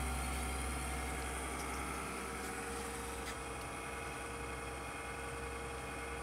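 Desktop PC running just after power-on, its cooling fans humming steadily and easing off slightly over the first few seconds, with a few faint clicks. The machine spins its fans but gives no picture, a fault the technician puts down to the motherboard.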